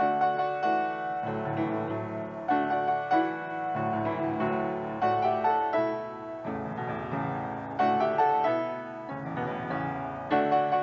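Piano music: a melody of struck notes over sustained chords.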